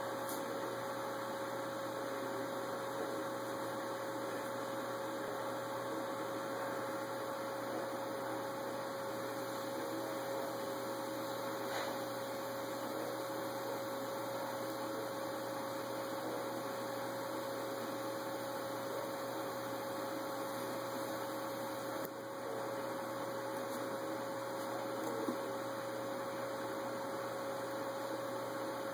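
Steady electrical hum with one constant tone, over an even background hiss that does not change.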